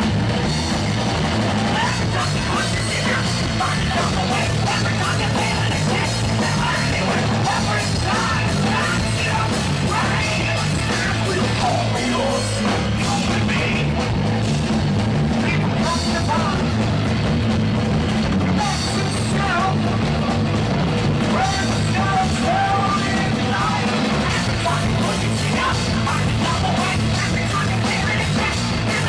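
A rock band playing live and loud: electric bass, electric guitar and drum kit together, with no break.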